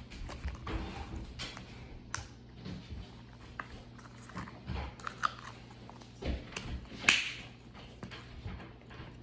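Slime being squeezed and stretched by hand, giving scattered wet clicks and squelches, with one louder snap about seven seconds in, over a steady low hum.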